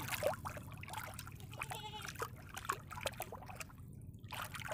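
Pond water splashing and lapping around swimmers moving in it, a run of small irregular splashes and drips.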